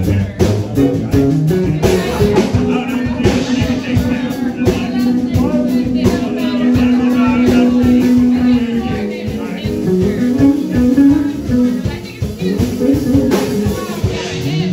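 Live band playing: electric guitar and drum kit with saxophone, one long held note through the middle, then a wavering melodic line.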